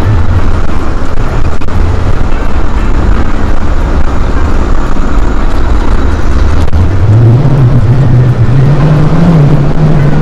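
Mobility scooter driving along a paved road: a steady, loud rough rumble of travel noise, with a low hum that rises in pitch from about seven seconds in.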